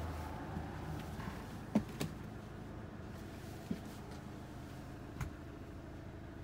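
A few light knocks and clicks over a low steady hum, the loudest just before two seconds in, inside a small motorhome cabin: someone moving about the interior.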